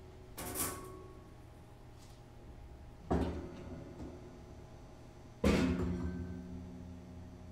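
Improvised noise music on an amplified string instrument lying flat, its strings hit three times with sudden noisy attacks. The third hit, about two thirds of the way through, is the loudest and rings on in low sustained tones that fade over about two seconds.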